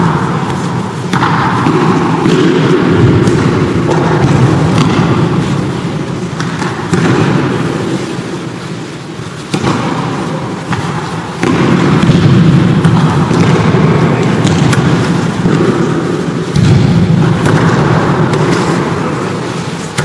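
Loud din of an aikido practice hall: repeated thuds of bodies being thrown and falling onto mats, with shuffling of many feet.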